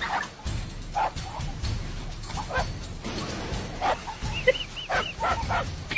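A small dog yipping and barking in short, separate bursts, about seven times, coming quicker near the end.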